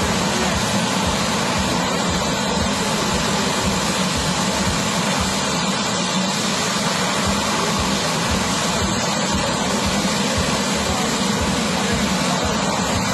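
Helicopter turbine engine running with the rotor turning: a steady, loud whine and rumble with a fluttering low beat.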